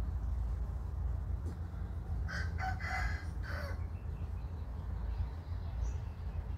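A rooster crowing once, a broken call lasting about a second and a half that starts a little past two seconds in, over a steady low rumble.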